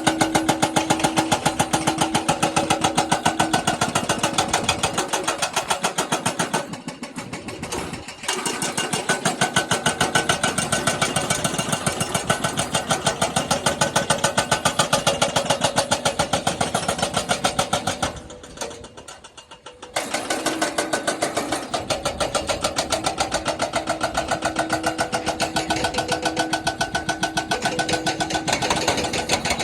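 Jackhammer breaking, a rapid, even hammering that runs in long bursts and stops briefly twice, about seven and eighteen seconds in.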